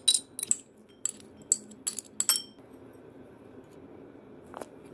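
A metal utensil clinking against a bowl while diced salmon and apple are stirred: a quick run of sharp clinks, some briefly ringing, over the first two and a half seconds, then one more tap near the end.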